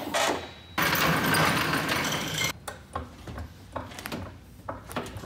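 A loud rush of noise for about two seconds, cutting in and out abruptly, then scattered metallic clicks and knocks as the arms of a two-post car lift are swung into place under the car.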